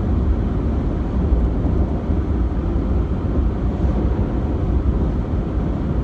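Steady low rumble of road and engine noise inside the cab of a vehicle driving at highway speed.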